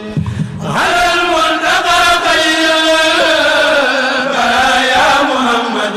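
Solo male voice chanting a Mouride xassida (Arabic religious poem), one ornamented line with wavering pitch. It follows a steady held note that breaks off at the start, and that held note comes back at the end.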